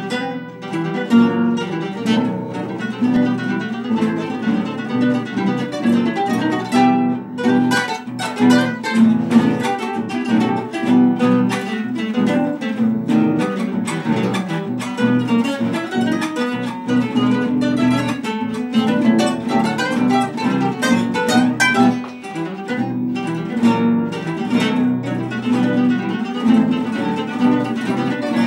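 Three classical nylon-string guitars playing a Cuyo-style gato together, strummed chords under a plucked melody line.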